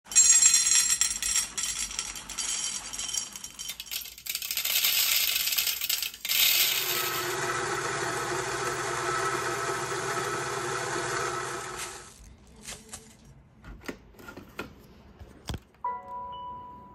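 Coffee beans poured rattling into a stainless steel cup. From about six seconds in, a Mahlkönig X54 coffee grinder's motor runs steadily while grinding, and it stops near twelve seconds. Then come a few light taps and a short electronic beep near the end.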